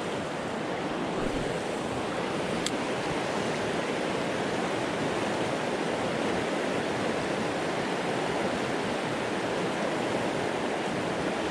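River rapids rushing in a steady roar of water, the river running high and fast.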